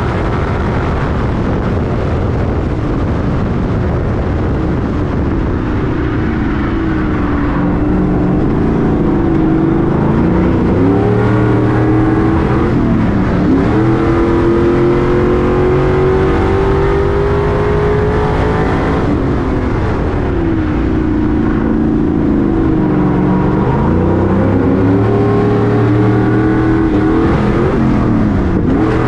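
Stadium Super Truck's V8 engine under racing load. Its pitch repeatedly drops sharply, then climbs in long, steady rises as the truck accelerates.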